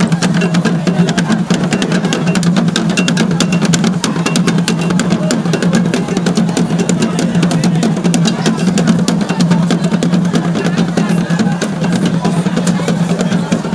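Loud music with dense, fast drumming and percussion over a low steady hum.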